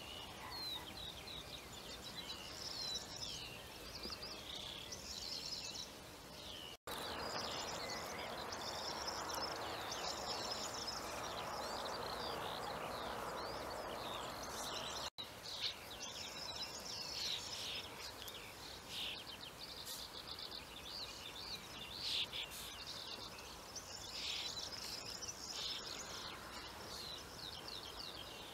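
Several songbirds singing, many quick repeated high chirps and trills, over a faint outdoor hiss. From about seven to fifteen seconds a soft rushing noise rises underneath, and the sound cuts out for an instant at each end of that stretch.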